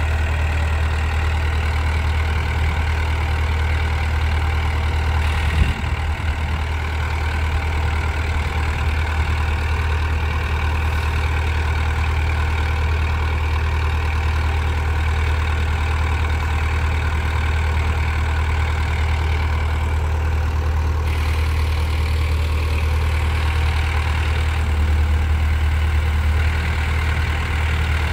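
Small crawler bulldozer's diesel engine idling steadily with a deep, even hum. A single sharp knock sounds about five and a half seconds in.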